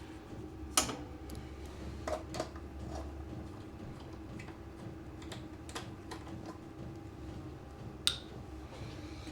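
Scattered sharp clicks and light metallic ticks of hand tools working on the lawn mower's bolts, over a steady low hum.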